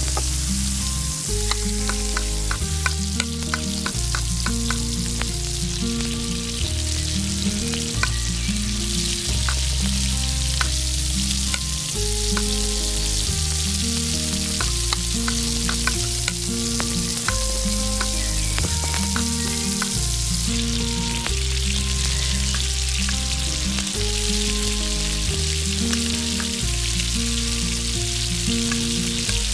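Chopped vegetables and chicken frying and sizzling in oil in a miniature stainless steel pot, with a spoon stirring and clinking against the metal in many short taps.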